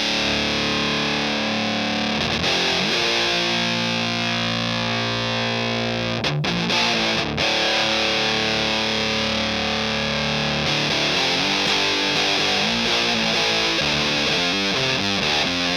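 Electric guitar played through a Hydra Fuzz pedal, a Tone Bender 3-knob–style germanium transistor fuzz, giving a thick, saturated fuzz tone. Sustained chords ring out, break off briefly twice about six and seven seconds in, and give way to quicker picked notes near the end.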